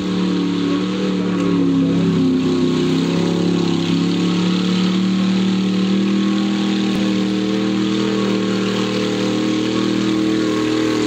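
Jeep CJ's engine held at steady high revs as it churns through a deep mud bog, its pitch rising slightly about two seconds in.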